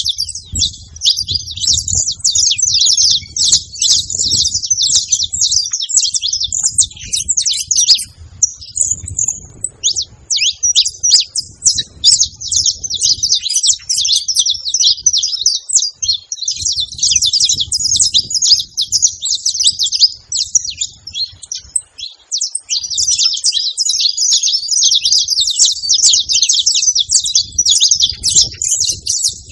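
Saffron finches singing: fast, high, dense chirping in long runs broken by short pauses.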